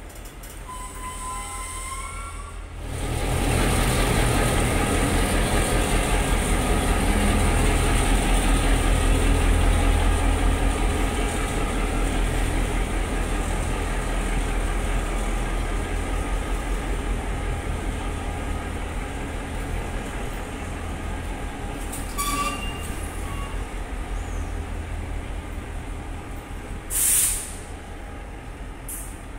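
Queensland Rail 1720 class diesel locomotives running, a loud steady engine drone that builds about three seconds in and slowly eases off. Near the end, a short hiss of air from the train's brake system.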